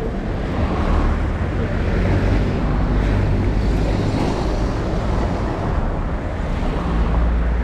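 Busy street traffic: cars and a city bus driving past close by, a steady rumble with wind buffeting the microphone.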